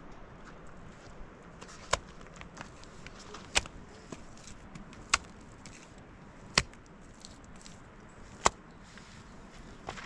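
Handfuls of wet mud slapped onto a stone-and-mud structure being built up by hand: five sharp slaps about a second and a half apart.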